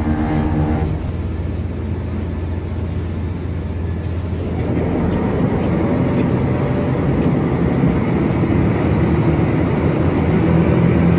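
Car ferry's engines and propellers running steadily as the boat pulls away from the dock, a continuous low rumble with rushing water, slowly building. A pitched sound carried over from just before stops about a second in.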